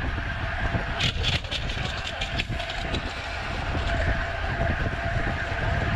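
Wind rushing over the microphone of a camera on a road bike ridden at about 28 mph in a racing pack, mixed with tyre and road noise, with a few brief clicks about a second in.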